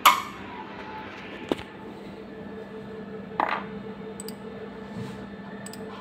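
Network cable plug clicking into its port on the ECDIS processor unit, reconnecting the serial relay board, with a smaller click about a second and a half in and a brief rustle a couple of seconds later. A steady low electronic hum runs underneath.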